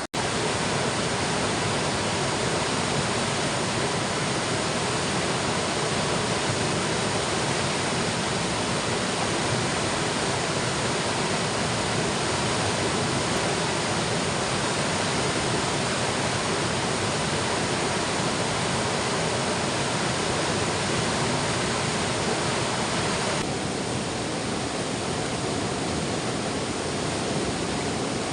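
Fast-flowing river water rushing steadily, the river swollen after overnight rain. Near the end the deeper part of the rush suddenly drops away.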